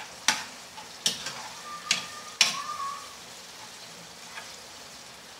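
Metal spatula scraping and knocking against a frying pan as sardines and tomatoes are stirred, over a steady sizzle of frying. About four scrapes come in the first two and a half seconds, then only the sizzle.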